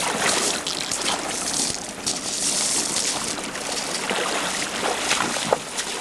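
Water splashing and trickling: an irregular rush of small splashes on a river surface.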